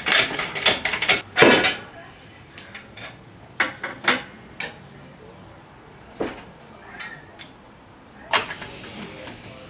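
Hydraulic floor jack being pumped by its handle: a quick run of metal clicks and clacks in the first couple of seconds, then scattered single knocks. A steady hiss comes in near the end.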